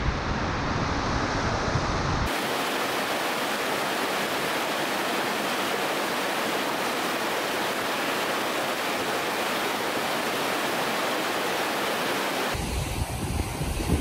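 Fast, silty mountain river rushing over boulders: a steady, even rush of water. Wind buffets the microphone for the first two seconds and again near the end.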